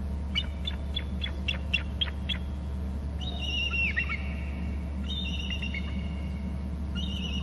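Bald eagle calling: a quick run of about eight short, high chips, then three longer high calls that waver and drop in pitch, a few seconds apart.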